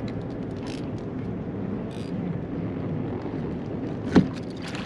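Steady low rumble on a small fishing boat, with scattered light clicks of handling and one sharp knock about four seconds in.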